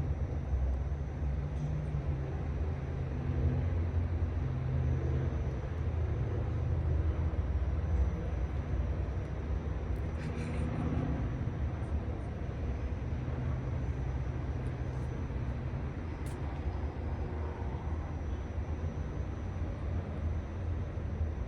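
Steady low mechanical rumble, like an idling engine or running motor, with a faint steady high-pitched tone above it and a few faint clicks.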